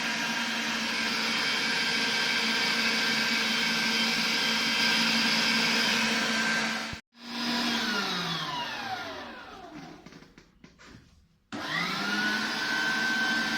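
An electric kitchen appliance motor runs with a steady hum. About seven seconds in it cuts off and winds down, its pitch falling away to near silence. It starts again near the twelve-second mark, rising quickly in pitch to a steady running speed.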